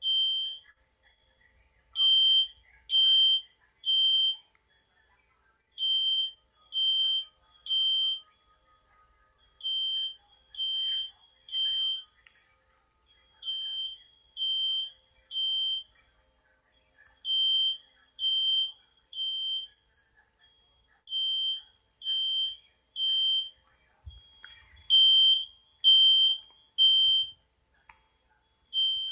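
Smoke detector alarm sound played back from an online video: high-pitched beeps in groups of three, each group followed by a short pause, repeating about every four seconds in the temporal-three fire alarm pattern.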